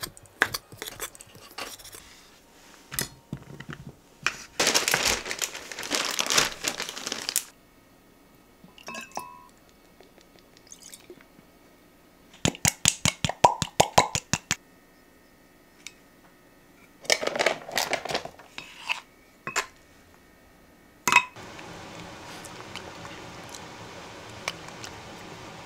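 Kitchen work sounds: scattered clinks and knocks of utensils and dishes, a stretch of crinkling or rustling, and a quick even run of clicks about a second and a half long. After a sharp click near the end, a steady low hiss sets in.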